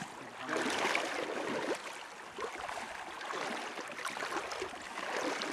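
Splashing in river water as a hooked Atlantic salmon thrashes at the surface, over the steady rush of the river.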